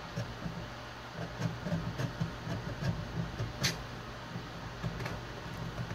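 A steel tool scraping along the edge of a stainless steel knife blank to scribe a center line, metal scratching on metal in short irregular strokes, with a sharp click about three and a half seconds in. A low steady hum runs underneath.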